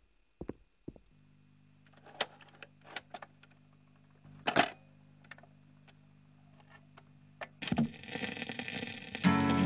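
Faint scattered clicks and knocks over a low steady hum, the loudest click about halfway through; near the end an acoustic guitar starts strumming, the opening of a song.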